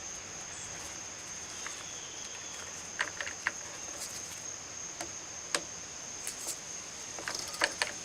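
Scattered small clicks and taps of a chainsaw fuel line being worked through its hole with fingers and needle-nose pliers, over a steady high-pitched trill.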